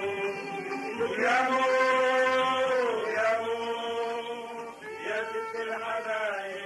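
A singing voice holds long, drawn-out notes in about three phrases, each bending in pitch as it ends. The notes fade somewhat towards the end.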